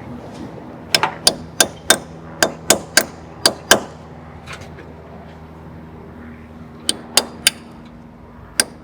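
Hammer tapping on a small metal pin or punch: a quick run of about nine sharp, ringing taps, then three more and one last tap near the end. A faint steady hum runs underneath.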